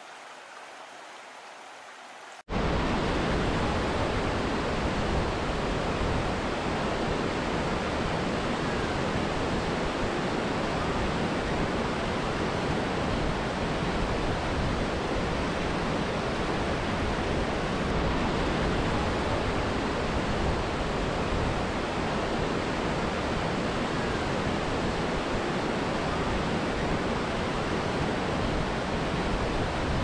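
Waterfall: a steady rush of falling water. About two and a half seconds in, it cuts suddenly from a fainter, thinner rush to a much louder, fuller one with a deep low rumble, which then holds steady.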